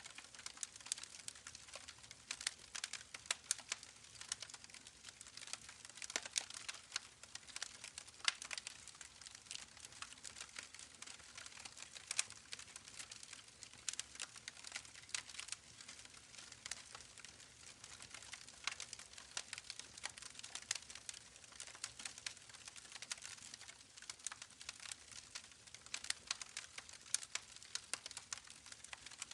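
Campfire crackling, a dense run of irregular small pops and snaps, over the steady babble of a creek.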